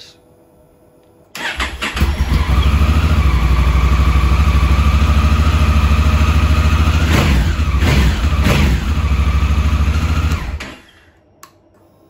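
Honda Africa Twin's parallel-twin engine cranked on the electric starter about a second in, catching and running at a steady idle for about eight seconds, then stopping suddenly. This is a test start after cleaning the carbon-fouled starter switch.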